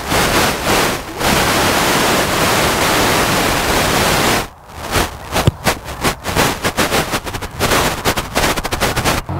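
Wind buffeting the microphone: a loud steady rush, a short dip about four and a half seconds in, then rapid choppy gusts.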